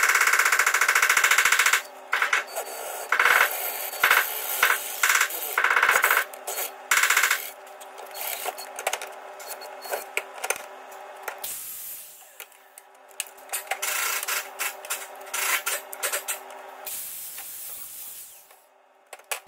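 Handheld electric drill boring through a steel bracket held in a bench vise, running in stop-start bursts as the bit bites into the metal. Near the end an angle grinder cuts through a steel bar.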